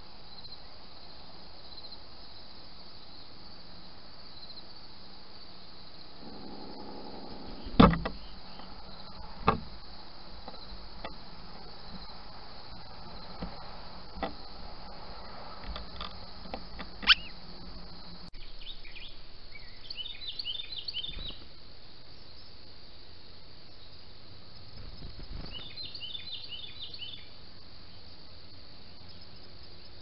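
A steady high drone of insects, with a few sharp knocks, the loudest in the first half. Later there are two short bursts of quick, high bird calls from small songbirds such as chickadees.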